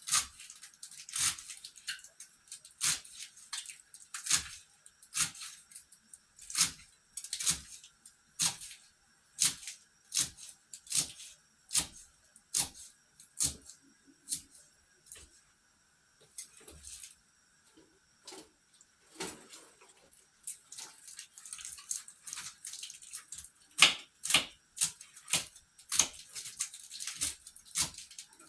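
Knife chopping greens on a cutting board in steady strokes, about one every three-quarters of a second, thinning out midway and then quicker and denser near the end.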